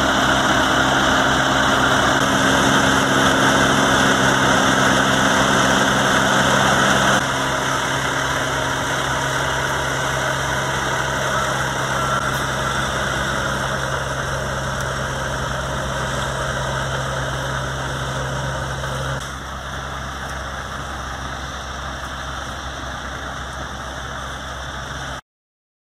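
Fire engine's diesel engine running steadily at the scene, with a hiss laid over it for the first seven seconds or so. The sound steps quieter about seven seconds in and again a little before twenty seconds, then stops abruptly just before the end.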